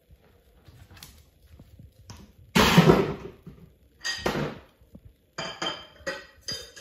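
A small poodle jumping down from a wooden dining chair onto a wooden floor: a loud thud about two and a half seconds in, then a shorter knock and a run of light clinks and taps near the end.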